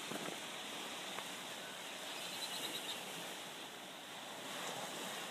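Small lake waves washing onto the shore, a steady rushing hiss.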